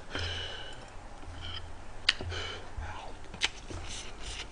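Eating sounds: soft chewing of food, with a couple of sharp clicks from metal chopsticks.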